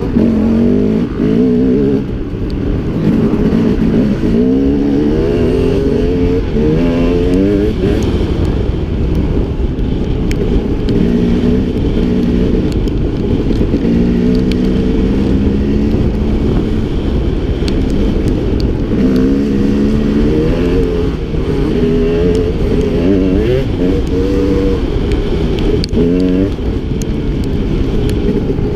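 Dirt bike engine running under load, its pitch climbing and dropping back again and again as the rider rolls on the throttle and shifts.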